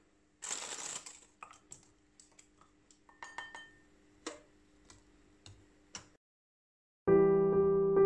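Light clicks and taps of biscuits being set down in a metal loaf tin, with a short scratchy rasp about half a second in. About seven seconds in, electric piano music starts.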